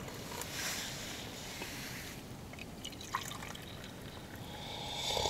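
A drink poured from a vacuum flask into metal cups, a thin stream trickling and dribbling. There is a short click about three seconds in, and near the end the pitch of the pour rises as the small steel cup fills.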